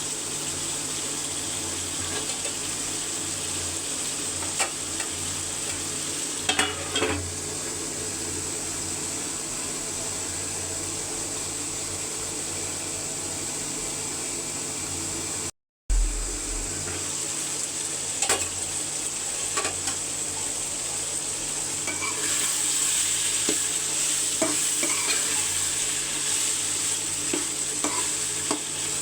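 Chicken curry pieces frying and sizzling in oil in a pot, with a spoon scraping and clicking against the pot as it is stirred now and then. The sound drops out for a moment about halfway through.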